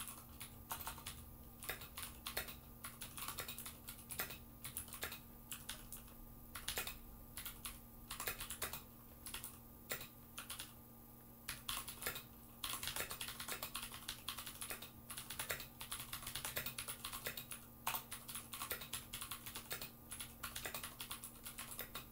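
Typing on a Ducky One mechanical keyboard: rapid, uneven key clicks that pause for about two seconds a little past halfway and stop at the end.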